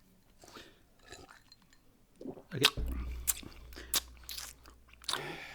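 Loud, crunchy chewing close to the microphone, a quick run of sharp crunches starting about halfway in, after a quiet start.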